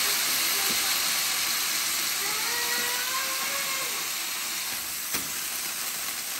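Ground beef on a wrap flatbread sizzling steadily on the hot plate of a Ninja Woodfire grill, freshly turned over to brown the other side. A faint wavering squeak comes around the middle, and there is a single sharp click near the end.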